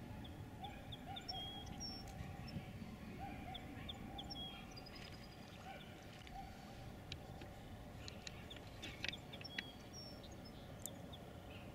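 Distant wild birds calling: many short high chirps and lower hooked calls, scattered over a low steady rumble, with a few sharp clicks about nine seconds in.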